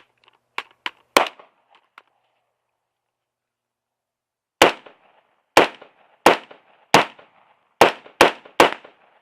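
Seven gunshots fired one at a time, starting about four and a half seconds in. They come roughly a second apart at first, and the last three are quicker. A couple of faint clicks sound in the first second and a half.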